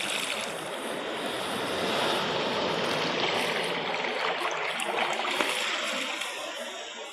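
Sea surf: a wave breaking and washing in, a rush of water that starts suddenly, swells over about two seconds and eases off near the end.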